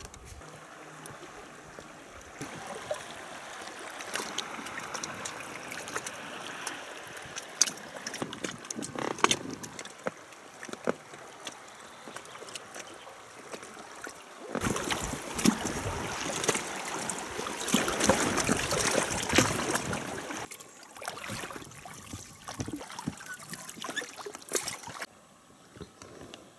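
Water trickling and splashing around a small boat drifting on a river, with scattered small knocks and clicks. The water noise grows louder for several seconds about halfway through, then eases.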